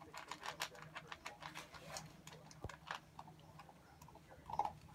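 Dog eating dry kibble from a raised bowl: a rapid run of crunches and clicks as the kibble is chewed and knocked against the bowl, dense at first, then sparser, with one louder clatter near the end.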